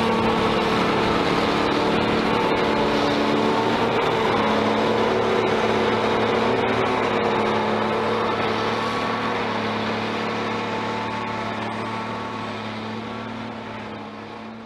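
Volvo wheel loader with a front-mounted snow blower running steadily while it blows snow into a dump trailer: a constant diesel drone with a steady tone over the rush of the blower. It grows gradually quieter over the second half.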